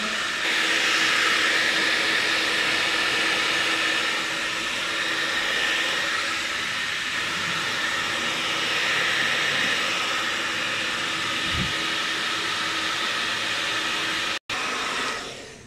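Handheld hair dryer blowing steadily with a faint motor hum under the rush of air, cutting out briefly once and then dying away near the end.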